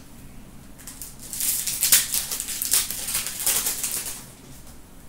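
A foil trading-card pack wrapper crinkling and crackling in the hands while it is handled and opened, for about three seconds, then stopping.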